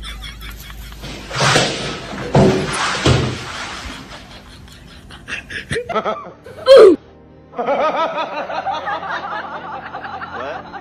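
Laughter over music. Just past the middle comes a short, very loud sound that falls in pitch, and after a brief gap the laughter goes on to the end.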